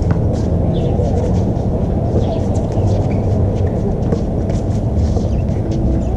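Steady low rumble from the outdoor court, with scattered faint short knocks and brief squeaks from a pickup basketball game: ball bounces and sneakers on the court surface.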